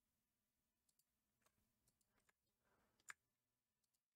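Near silence, with a few faint computer mouse clicks; one is a little louder, about three seconds in.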